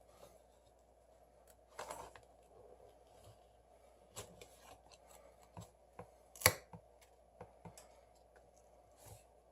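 Scattered small clicks and scrapes of a thin prying tool cutting into the adhesive of a Samsung Galaxy S6 Edge Plus, the glued part stubborn to release, with one sharper click about six and a half seconds in.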